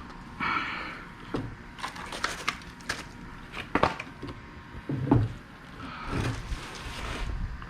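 Handling noise from unpacking: rustling packing material with an irregular run of knocks, clicks and a couple of dull thumps as parts and packaging are moved about.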